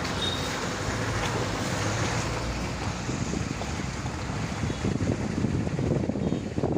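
A low engine hum from machinery running under steady wind noise buffeting the microphone, with small irregular crackles.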